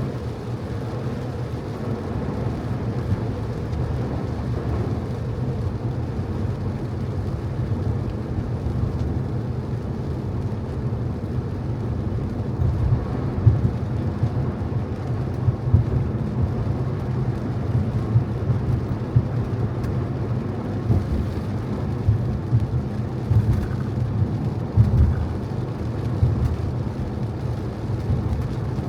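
Car driving on a wet road in the rain: a steady low rumble of road and engine noise, with several short, louder low thumps from about 12 seconds in.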